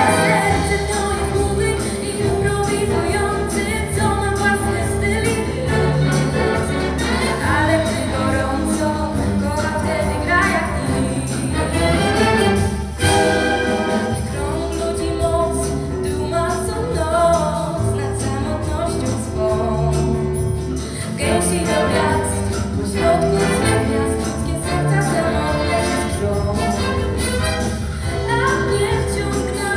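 Wind orchestra playing a pop song with a woman singing the solo over it. A drum kit with cymbals keeps a steady beat under the saxophones, flutes and brass.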